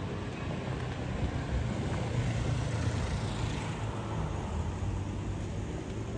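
Road traffic: a steady low rumble with one vehicle passing, its tyre hiss swelling to a peak about halfway through and then fading.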